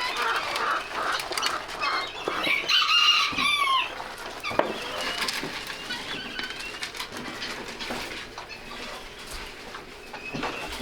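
Barnyard poultry calling and clucking, many birds at once, with one louder, longer call about two to four seconds in and a sharp knock a little later; the calling grows quieter toward the end.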